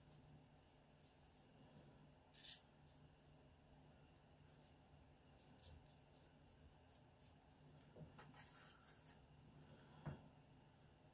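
Near silence, with faint short scratchy strokes of a watercolor brush on Arches 140 lb watercolor paper. There is a longer run of strokes near the end and a soft knock just before it ends.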